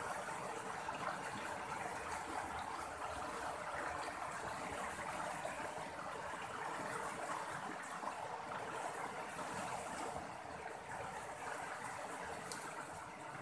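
Fast-flowing river water rushing and churning around a tree trunk, a steady noise.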